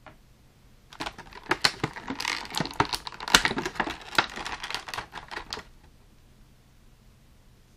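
Clear plastic blister tray crackling and clicking in a quick irregular run as a figure's weapon accessory is worked free of it, starting about a second in and stopping about two seconds before the end.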